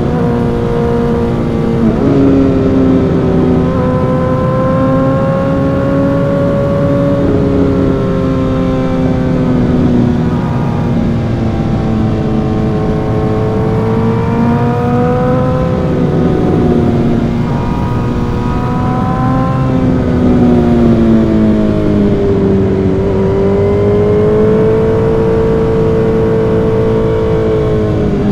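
Suzuki GSX-R1000 inline-four through an M4 aftermarket exhaust while riding. The engine note climbs and drops with the throttle, with quick pitch steps at gear changes about two and four seconds in, and a long dip and climb again in the second half.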